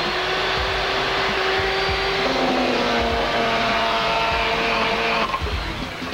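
Corded electric chainsaw running with a steady whine as it cuts into a cardboard cutout; its pitch shifts lower about two seconds in, and it stops about five seconds in.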